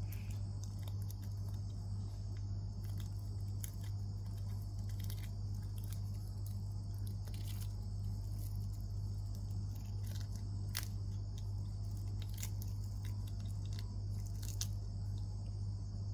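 Baby monkey biting and chewing a cicada: irregular crisp crunches and tearing clicks of the insect's hard shell and wings, a few sharper ones in the second half. Under it runs a steady low hum and a steady high-pitched insect-like drone.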